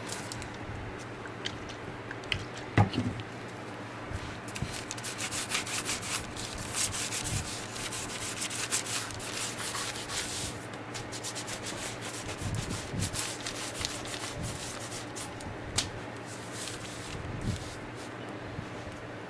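Round applicator pad rubbed back and forth along a tooled leather belt strip, with a busy run of quick scrubbing strokes through the middle and lighter rubbing later. A sharp knock about three seconds in.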